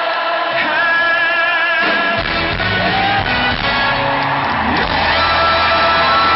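Live pop band and singer, heard from the audience in a large arena hall. A long sung note with vibrato is held, then the full band with bass comes in about two seconds in.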